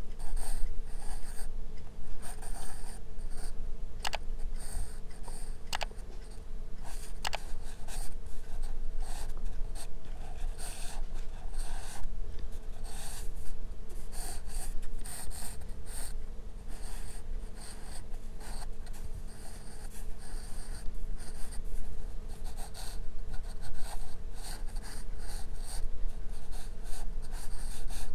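Graphite pencil scratching on sketch paper in short, irregular strokes as the first structure lines and outline are roughed out, over a steady low hum. A few sharp clicks come about four to seven seconds in.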